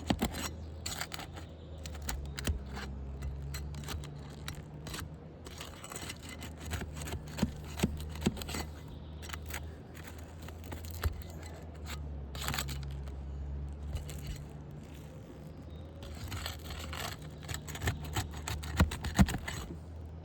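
Brittle asphalt roof shingles being lifted and pried up: irregular scraping and sharp crackling clicks as the shingle tabs come loose and tear along their thermal cracks.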